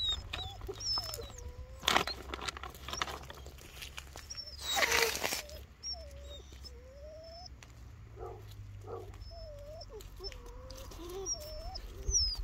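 Bernese mountain dog puppies whining and whimpering in play, a string of short, wavering cries that slide up and down in pitch, while they tussle over a plush toy. Louder rustling and scuffling about two seconds and five seconds in, and faint, brief bird chirps.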